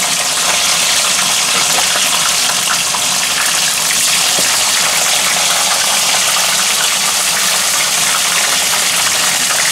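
Starch-dusted crab frying in hot oil in a wok, a steady, loud sizzle.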